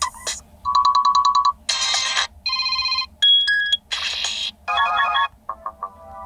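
Android ringtones on a Chuwi HiPad X tablet, previewed in quick succession: about seven different short electronic melodies and chimes, each lasting a second or less and cut off as the next one starts.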